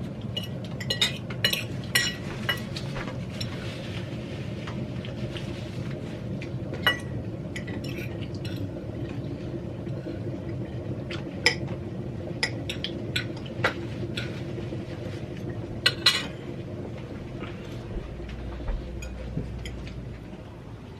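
Cutlery clinking against plates and dishes during a meal, in irregular sharp clinks with the loudest pair about sixteen seconds in, over a steady low hum.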